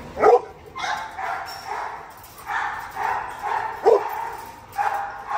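Dogs barking: a loud bark just after the start and another just before four seconds, with fainter barks between.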